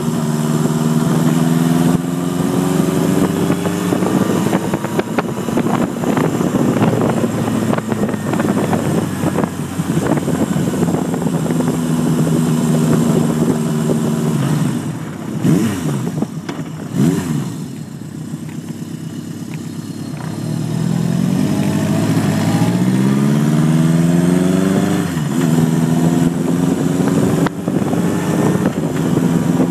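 Motorcycle engine under way, heard from the rider's chest: it runs steadily at speed, then falls to a quieter low running about halfway through, with a couple of short revs. It climbs in pitch again under acceleration and drops back at a gear change near the end.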